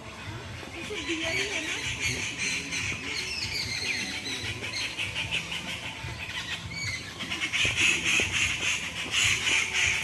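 A dense chorus of many small birds chirping and twittering at once, with short quick notes overlapping throughout. It swells louder about eight seconds in and again near the end.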